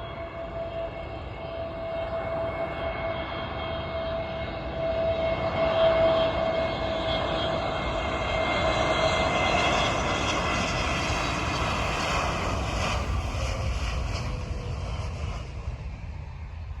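Aircraft engines running as a plane passes: a steady whine over a broad rush that grows to its loudest about a third of the way in, holds, then fades near the end.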